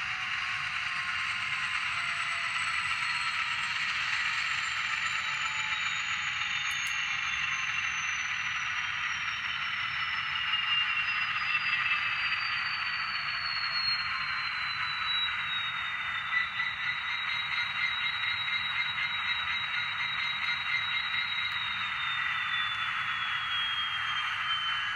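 Onboard sound decoder of an HO-scale Rapido TRE diesel locomotive model, playing a running diesel engine through its small speaker. A high whine falls in pitch, holds steady around the middle and falls again near the end as the model slows.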